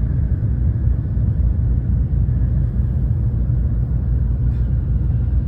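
Tokaido Shinkansen train running, heard from inside the car as a steady, loud low rumble.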